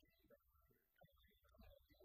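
Faint male speech over a video call.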